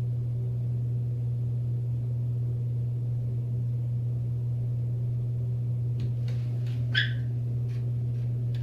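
A steady low electrical-sounding hum, with a few faint small clicks and one brief higher-pitched tick about seven seconds in.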